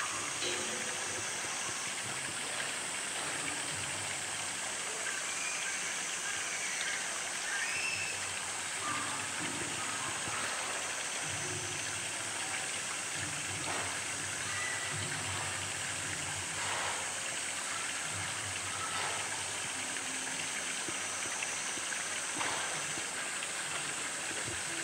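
Steady rush of running water in a polar bear's pool, with faint splashes as the bear swims pushing a floating blue plastic drum.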